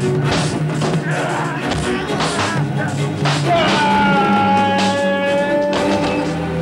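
Rock-style background score: steady bass notes under repeated drum hits, with a long held note in the middle.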